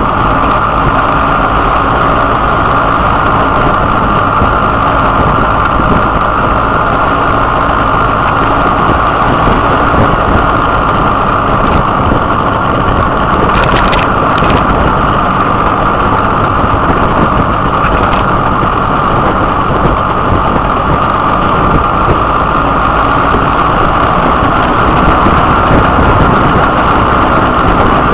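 Motorcycle riding at speed: its engine running under steady, heavy wind rush on the microphone, with a brief knock about halfway through and another a few seconds later.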